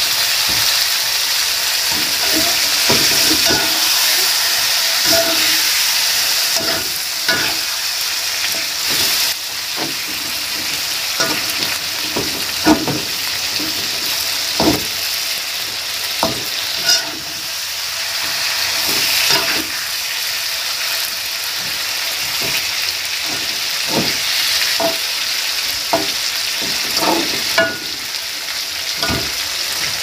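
Food frying in a pan, with a steady sizzle throughout, while a spatula stirs it, scraping and knocking against the pan many times.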